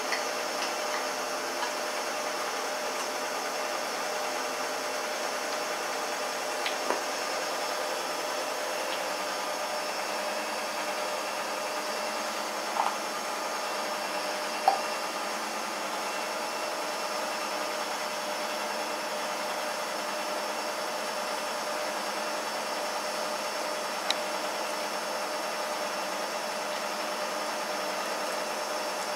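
Steady hiss with a faint hum throughout, broken by a few scattered sharp crunches as a Shar-Pei puppy chews a raw chicken rib, the loudest about halfway through.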